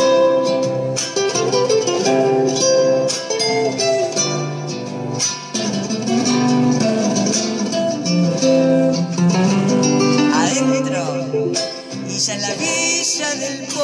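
Karaoke backing track of an Argentine folk song playing an instrumental break between verses, led by plucked guitar.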